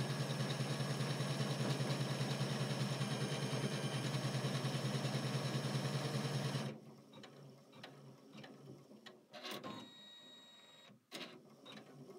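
Janome 500E embroidery machine stitching out a design, a steady fast needle rhythm that stops abruptly about seven seconds in. After it stops, a few quieter mechanical clicks and a brief whir.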